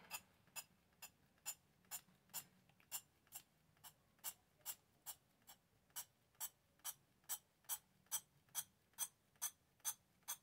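Faint, evenly spaced clicking of a spray bottle's pump nozzle being pressed over and over, about two clicks a second, as water is sprayed into another bottle to fill it.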